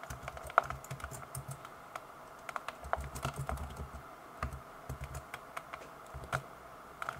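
Typing on a computer keyboard: a string of irregular key clicks, some coming in quick runs.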